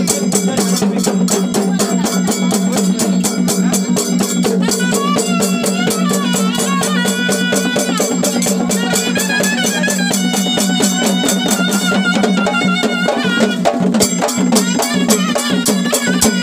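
Traditional Tamil temple-festival music for a possession dance: rapid, dense drumming over a steady low drone, with a wavering high melody coming in over the middle stretch.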